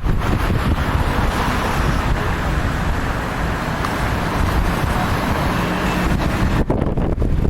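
Strong wind buffeting the microphone with a constant low rumble, and road traffic noise that swells in the middle as a car passes, then fades.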